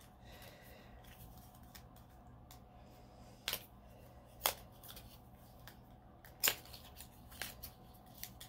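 Faint handling noises as fingers work open a small lip balm package, with a few sharp snaps and ticks, the loudest about three and a half, four and a half and six and a half seconds in.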